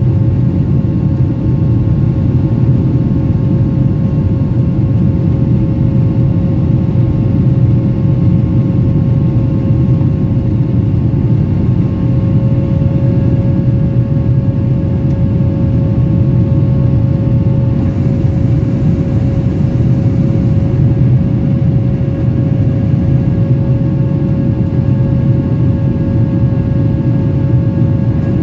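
Cabin noise of a Boeing 737-800 climbing after takeoff: a steady roar of its CFM56-7B turbofan engines and airflow, with a steady engine tone on top that rises slightly in pitch about twelve seconds in.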